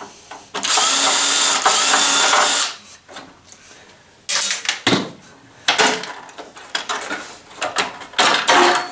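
Cordless drill running for about two seconds to back out a screw from a boombox's plastic housing. A few seconds later come a series of clicks and knocks as the plastic case and circuit board are handled and pulled apart.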